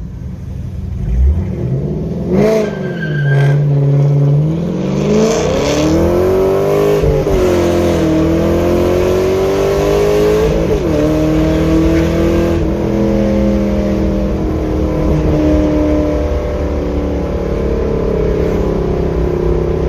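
Camaro SS V8 with aftermarket headers launched from about 2,000 rpm and pulled at wide-open throttle. After a short rev, the engine note climbs hard, drops at an upshift twice, then keeps climbing more slowly in the next gear.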